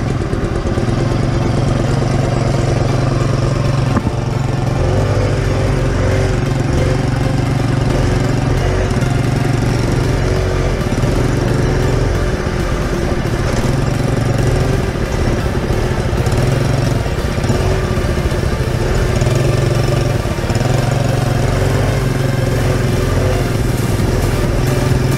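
Small petrol engine of a child's mini quad running steadily at low throttle along a bumpy dirt trail, its pitch wavering only slightly, with constant light rattling over the ground.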